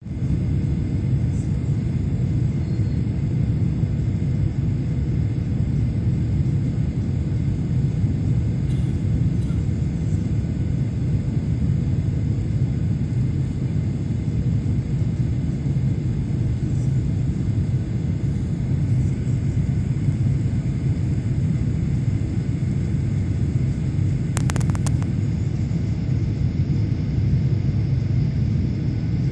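Steady low rumble inside a jet airliner's cabin on descent: engine and airflow noise heard from a window seat beside the engine. A brief run of clicks comes about 25 seconds in.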